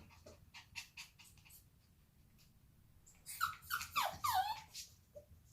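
Bichon Frisé puppy whining: a few soft breathy sounds, then a quick run of four or five high whimpers about three seconds in, each falling in pitch.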